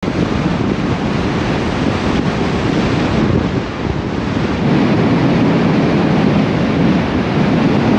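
Steady rush of wind on the microphone, with road noise, from a camera mounted outside a Mercedes Sprinter 4x4 van driving at speed.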